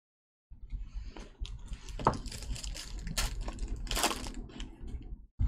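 Crinkling and tearing of a foil trading-card pack wrapper as it is ripped open, with clicks and rustles of the cards being handled. It starts about half a second in and crackles irregularly, with a few sharper rips around the middle.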